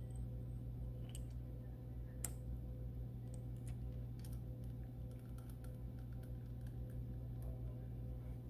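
Light metallic clicks and taps as a common-rail fuel inlet tube and its nut are fitted into the side bore of a diesel cylinder head, heard over a steady low hum. There are a couple of sharper clicks in the first two seconds, then a run of small ticks.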